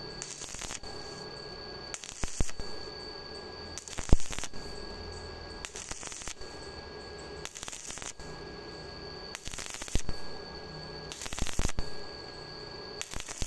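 Electric arc welding on thin-walled hollow iron, done in short intermittent bursts: the arc crackles for about half a second, then stops, then strikes again, about every two seconds, eight times. Welding in short pulses like this keeps heat down so the thin wall does not burn through.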